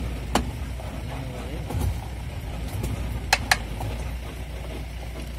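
Safari vehicle's engine running steadily as it drives along a forest track, with a few sharp clicks: one near the start and two close together about three and a half seconds in.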